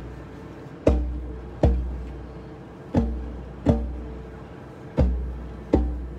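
A deep drum struck in a steady two-beat pattern: pairs of hits about three-quarters of a second apart, a pair every two seconds, each hit ringing low and fading before the next.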